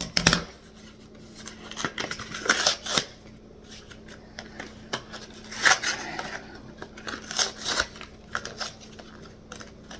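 Plastic packaging being worked open by hand: irregular clicks, snaps and crinkling, with a few louder clatters.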